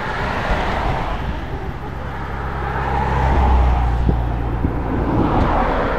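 Motor traffic passing close by on a road: engine and tyre noise swelling to its loudest about three and a half seconds in, then easing off.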